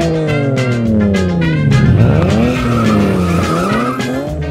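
Engine-like revving sound, its pitch sweeping down and back up in long glides, over background music with a steady beat.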